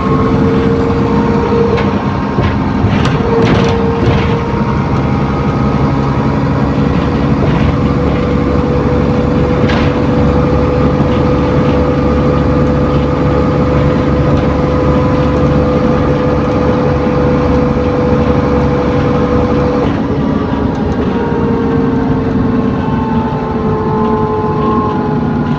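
Inside an ADL Enviro400 Trident double-decker bus with a Voith automatic gearbox, under way: the diesel drivetrain runs steadily with a whining, vacuum-cleaner-like 'hoover' tone. The whine holds steady, cuts off about twenty seconds in, then rises again. A few short rattles come early on and around ten seconds in.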